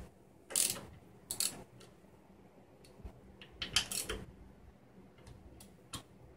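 Hand socket ratchet clicking in short, irregular bursts while loosening the bolts at the base of a motorcycle's fuel tank.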